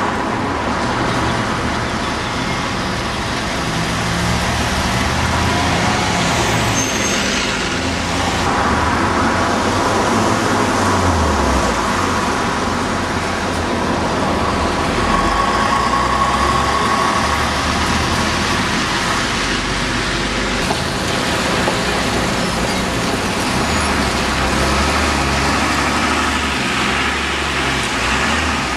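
Street traffic: buses and other road vehicles running and passing, a steady engine rumble that swells and fades as vehicles go by.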